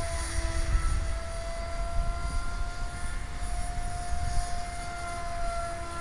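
Small RC model plane's 2200Kv brushless electric motor and 5x5-inch propeller whining steadily overhead. The pitch dips and shifts slightly now and then. A low rumble runs underneath.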